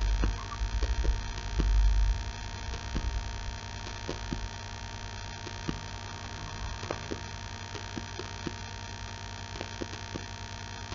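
Steady electrical mains hum in the recording, with a low rumble that is stronger for the first two seconds, and scattered faint clicks.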